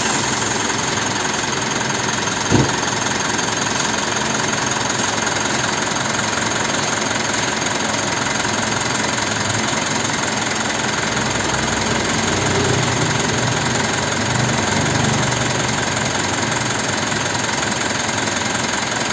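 Diesel car engine idling steadily, heard at the open engine bay, running on Liqui Moly 5W-30 Molygen oil with an oil additive. A single sharp knock about two and a half seconds in.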